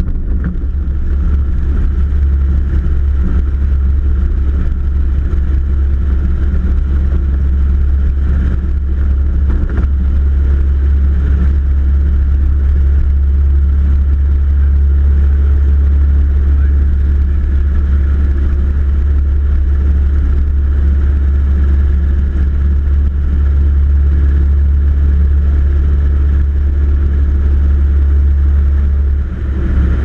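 Aeronca Champ's piston engine and propeller running steadily at takeoff power during the takeoff roll and climb-out, heard from inside the small cabin as a loud, even drone.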